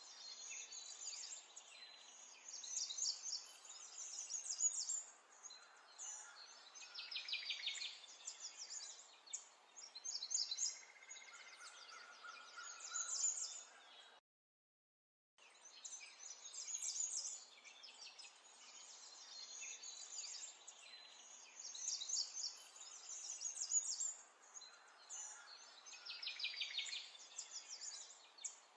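Several songbirds chirping and trilling over a soft outdoor hiss, with a rapid trill now and then. The sound cuts out completely for about a second halfway through, then the birdsong resumes.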